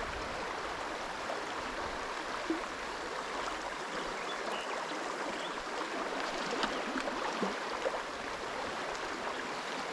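River water rushing steadily over stones in a fast, shallow riffle.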